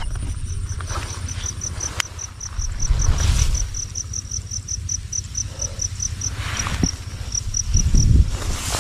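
An insect chirping in a long run of short high-pitched pulses, about four a second, with a brief pause and stopping near the end. A low rumble runs underneath, swelling about three seconds in and near the end.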